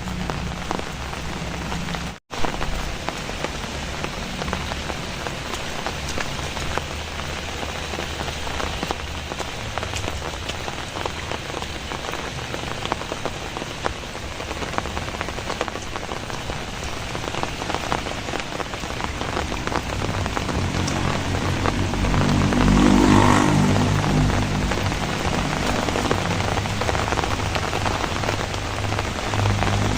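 Heavy rain falling steadily, a dense even hiss of drops. A low rumble builds in underneath about two-thirds of the way through and swells briefly before easing. The sound cuts out for an instant about two seconds in.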